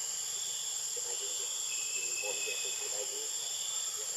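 Steady high-pitched drone of insects, with faint short calls of uncertain source coming through underneath from about a second in and again near the end.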